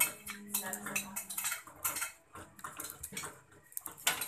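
Cutlery and dishes clinking at a meal table: a string of irregular short clicks and clinks of spoons and forks on plates.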